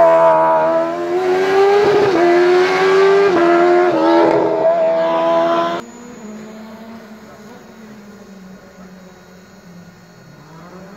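Race car engine at full throttle, its pitch climbing and dropping several times as it shifts up through the gears. About six seconds in it cuts off abruptly, leaving only a faint steady hum.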